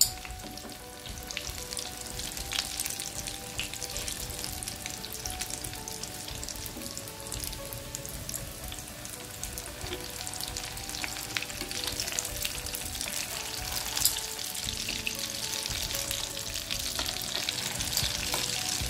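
Chicken shami kababs shallow-frying in hot oil in a frying pan: a steady sizzle with dense spitting crackle, growing a little louder towards the end. One sharp click stands out about three-quarters of the way through.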